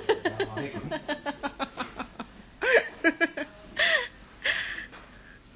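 A woman laughing: a run of quick short bursts, about five a second, then several longer peals of laughter that die away near the end.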